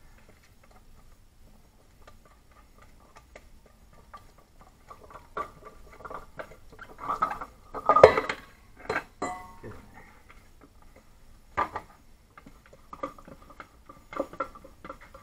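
Pureed peas being scraped out of a plastic food-processor bowl with a silicone spatula into a metal mixing bowl: soft scraping and clicking with scattered knocks and clinks. The loudest knock comes about eight seconds in, with a few more clatters over the following few seconds.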